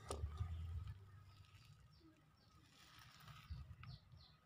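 Faint low rumble in the first second, then a few short, high, falling chirps of a small bird near the end.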